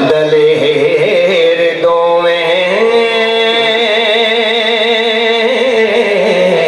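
A man singing Punjabi devotional verse into a microphone, drawing out long held notes with a wavering vibrato. He moves to a new note about three seconds in.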